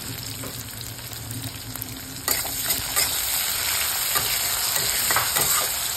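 Sliced onions sizzling in hot oil in a kadai. About two seconds in the sizzle gets louder as a spatula starts stirring them, with several scrapes of the spatula against the pan.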